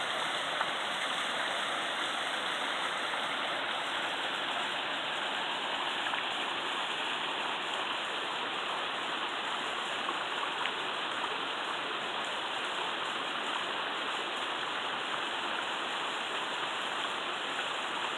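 Small mountain-creek waterfall cascading down a hillside, a steady rush of falling water.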